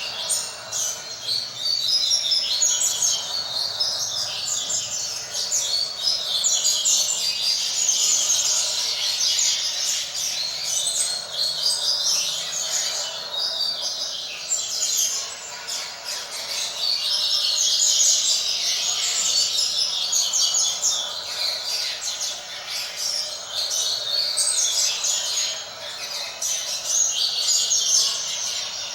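Double-collared seedeater (coleiro) singing a continuous run of rapid, high twittering notes in swelling phrases: a young male practising the 'fibra' song type.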